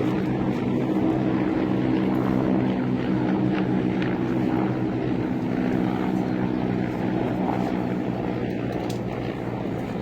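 Helicopter flying, its rotor and engine giving a steady, loud drone that eases off slightly near the end.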